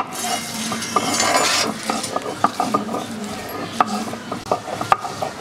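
Stone roller grinding spice paste on a flat grinding stone (shil-nora): a rough stone-on-stone scrape for the first second and a half, then repeated sharp clacks and scrapes as the roller is rocked and pushed over the slab.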